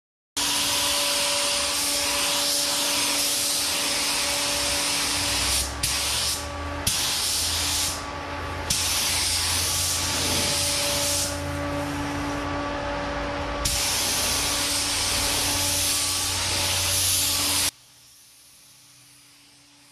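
Sagola 3300 GTO paint spray gun at 24 PSI laying down base coat: a loud, steady air hiss that drops out briefly a few times between passes. It then cuts off suddenly near the end.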